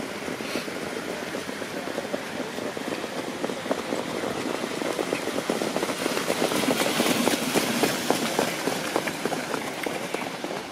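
A field of trotters pulling sulkies passes close by on a sand track: a rapid patter of hoofbeats over the noise of wheels and harness, growing louder, loudest about seven seconds in, then fading.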